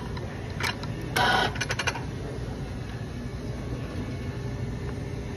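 A few sharp metal clicks and knocks of an espresso portafilter being handled, including a quick run of small rattling clicks, in the first two seconds; after that only a low steady hum.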